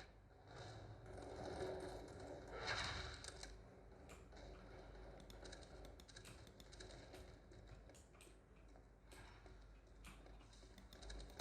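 GAMDIAS Hermes P1B mechanical keyboard keys pressed in faint, irregular runs of clicks, with a soft swell of noise about three seconds in.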